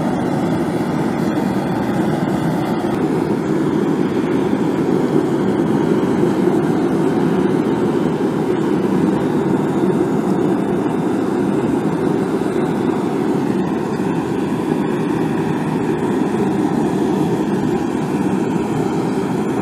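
Forge running with a steady, unbroken roar while a copper habaki is heated in front of it for soldering.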